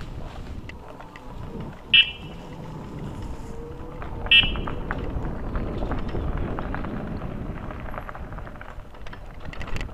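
Bicycle riding over a rough track: tyres rumbling, the bike rattling and wind buffeting the microphone. Two short, high squeaks cut through, about two seconds apart.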